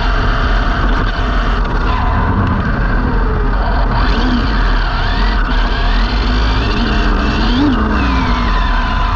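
Arrma Limitless RC car heard from its own roof-mounted camera at speed on tarmac: the electric motor's whine rises and falls in pitch with the throttle, over a constant rush of tyre and wind noise.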